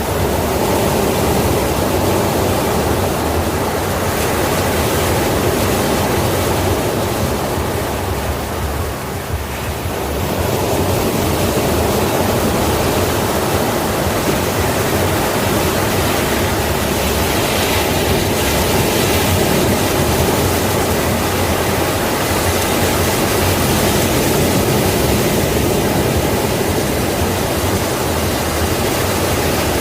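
Sea waves breaking on a shore: a steady rush of surf that eases briefly about nine seconds in, then swells back.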